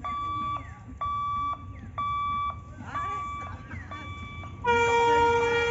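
Level-crossing warning beeper sounding about once a second, a half-second beep each time. About a second before the end, the approaching WAP-5 electric locomotive starts a long, loud blast on its horn.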